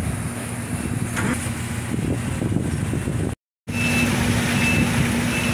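Steady low rumble of machinery on a fishing boat's deck during unloading. It drops out for a moment at an edit about three seconds in, then comes back with a steady hum and a short high beep repeating a few times.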